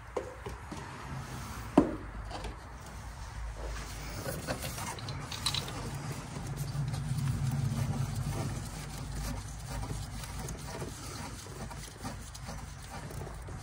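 Rubbing and light handling noises of a hand and sleeve working among engine hoses and parts, with one sharp click about two seconds in and a low rubbing rumble in the middle.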